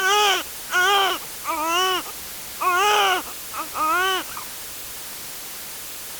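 A baby crying in about five short wails, each rising and falling in pitch, roughly a second apart, stopping about four and a half seconds in.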